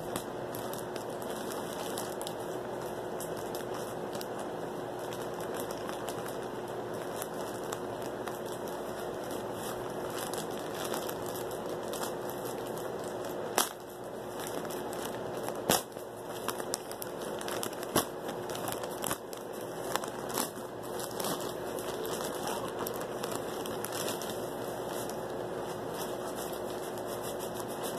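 Plastic mailer bag crinkling as it is pulled and worked at to get the glued seal open, with a few sharp crackling snaps about halfway through. A steady hiss runs underneath.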